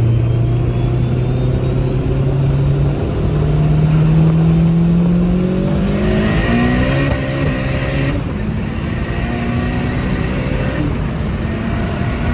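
Turbocharged Honda Civic four-cylinder pulling under acceleration, the engine note climbing steadily with a rising turbo whistle. About eight seconds in it eases off, and it lets off again near eleven seconds.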